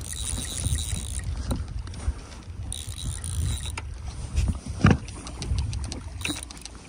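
Fly reel being cranked against a hooked trout, its ticks coming thick and fast in the last second or two, while the fish splashes at the surface. One louder splash or thump comes about five seconds in, over a steady low rumble.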